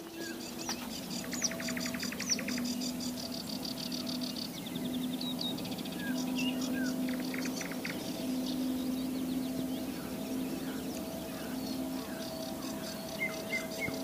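Morning birdsong: a nightingale sings fast repeated-note trills among many other birds chirping. Underneath, a low drawn-out note keeps coming and going every second or so.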